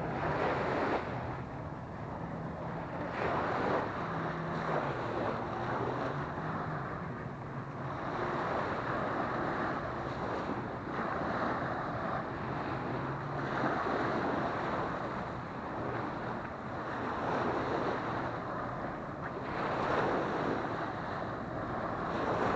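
Small waves breaking and washing up onto a sandy beach, surging every few seconds, with wind buffeting the microphone. A faint low engine hum sits underneath during roughly the first half.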